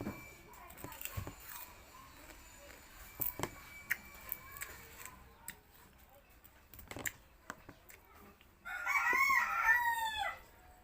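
A rooster crows once near the end, one loud call of about a second and a half whose pitch falls at the close. Before it, only faint scattered clicks and knocks.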